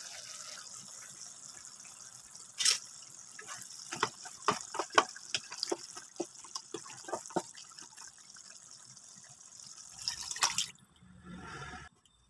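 Pork sizzling in a pan with a steady hiss while a wooden spatula scrapes and knocks against the pan as it is stirred, in a quick string of taps in the middle. Near the end the hiss stops and liquid, coconut milk, is poured in.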